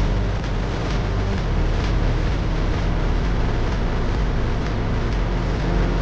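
Steady road noise from a vehicle on the move: engine rumble and tyre noise over a rough dirt road, with wind on the microphone.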